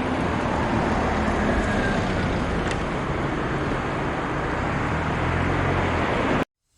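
Steady outdoor rumble with a low engine hum, like motor traffic, cut off abruptly near the end.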